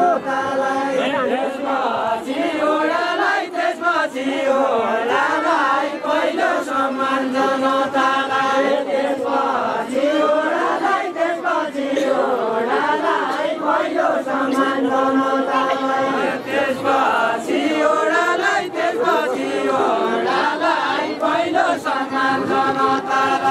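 A group of men singing a Deuda folk song together in a chanting unison melody, with long held notes that waver and slide between phrases.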